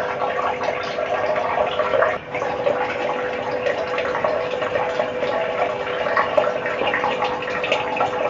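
Steady rush of water with a low steady hum beneath it.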